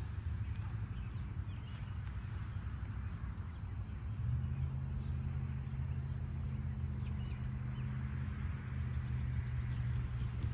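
Diesel locomotives of a distant freight train running with a steady low engine hum; the engine note steps up, louder and higher, about four seconds in. Birds chirp over it, along with a steady high insect drone.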